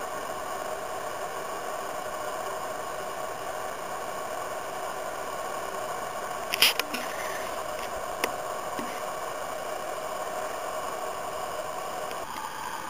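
Steady hiss of the camera's own recording noise, with no voices. A short handling scrape about six and a half seconds in and a single click about a second and a half later.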